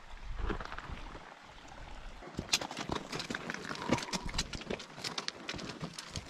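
Horse hooves clopping on a rocky trail: irregular sharp clicks and knocks that start about two seconds in and keep going.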